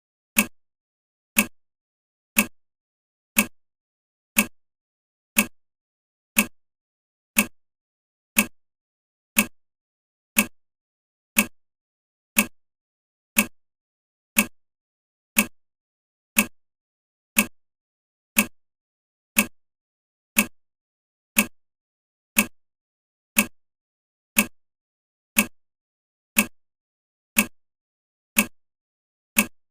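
Countdown timer ticking like a clock, one short tick every second in a steady, even rhythm.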